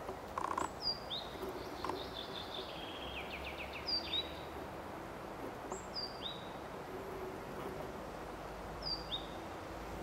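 Wild birds calling: short high chirps that drop in pitch, in groups of two or three about four times, and a fast trill of falling notes about a second and a half in, over a steady background hiss.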